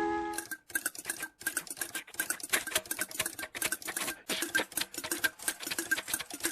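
Rapid, irregular clatter of many small hard clicks, like small hard objects rattling and pattering, with a faint steady tone beneath; it starts abruptly about half a second in.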